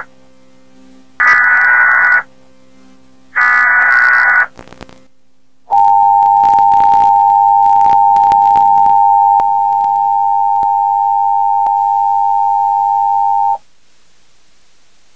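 Emergency Alert System broadcast tones: the last two of the header's warbling digital data bursts, each about a second long, then the two-tone attention signal, a steady dual-pitched tone held for about eight seconds before it cuts off. The alert it opens is a child abduction emergency.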